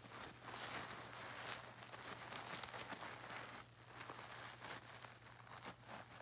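Soapy mesh bath pouf being squeezed and kneaded by hand in a tub of foamy water: wet squishing of lather with many small crackles, ebbing briefly and swelling again.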